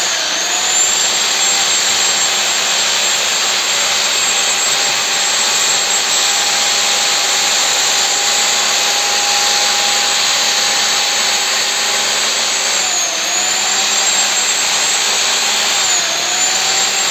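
High-speed electric power tool running steadily with a loud whine, its motor speed dropping briefly and recovering three times, at the start, about 13 seconds in and about 16 seconds in, as it is loaded in the work.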